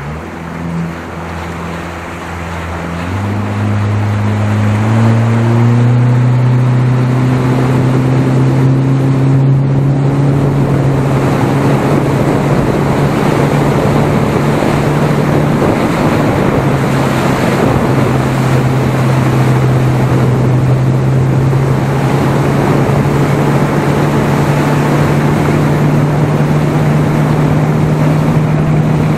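Outboard motor of a small inflatable boat running under way. Its pitch and loudness rise about three seconds in as the throttle opens, then it holds steady at cruising speed over the rush of water and wind.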